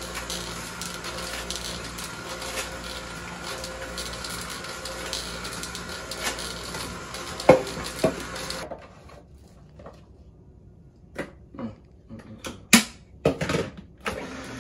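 Nama vertical slow juicer running with a steady motor whir, with one sharp knock about seven and a half seconds in. The whir stops suddenly about nine seconds in, followed by several clinks and knocks of glass and plastic containers being handled at the counter.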